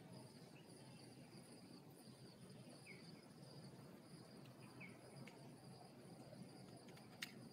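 Near silence: a faint, steady high-pitched chirring with a few short, faint chirps, and a single sharp click near the end.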